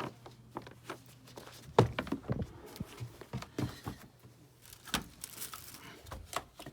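Irregular light knocks and rustles, with a low steady hum underneath that stops about four seconds in.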